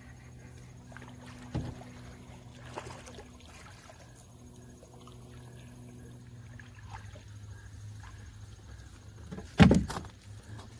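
Knocks on a canoe hull: a light knock about a second and a half in and a sharp, loud thump near the end, over a steady low hum.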